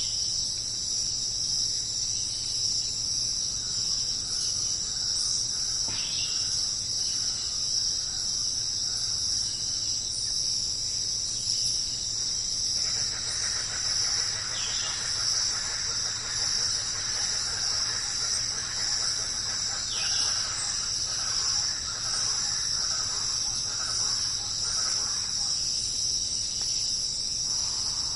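Steady, high-pitched insect chorus droning without a break. A few short falling calls cut through every several seconds, and a busier chattering joins for about ten seconds from roughly halfway through.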